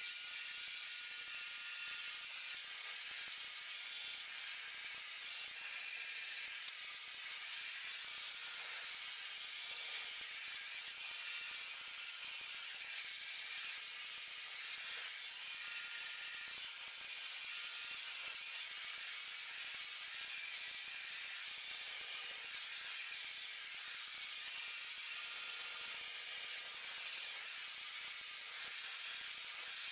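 Wenhsin hand-held hair dryer blowing hot air, a steady, even hiss that holds at one level throughout.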